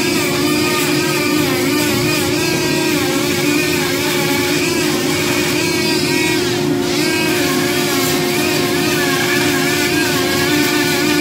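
Dremel flex-shaft rotary tool spinning a homemade Scotch-Brite sanding pad against carved wood, a steady motor whine whose higher pitch wavers up and down as the pad works over the surface. The pad is smoothing the carved beard and edges before the wood is burned.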